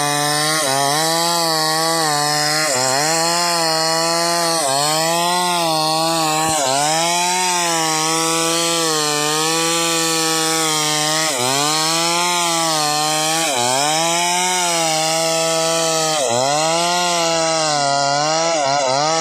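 Chainsaw cutting through a wooden beam, the engine running steadily and its pitch dipping and recovering every couple of seconds as the chain bites under load.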